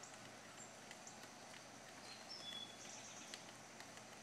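Faint outdoor ambience: a high insect buzz that swells in patches, a few short, high bird chirps past the middle, and scattered light ticks. No thunder is heard.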